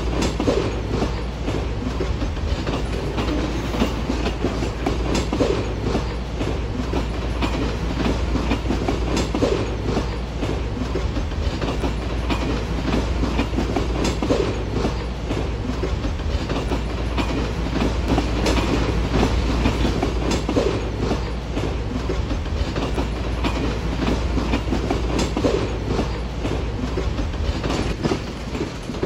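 Norfolk Southern freight train's tank cars rolling past, steel wheels clacking over the rail joints in a steady stream of clicks over a continuous low rumble.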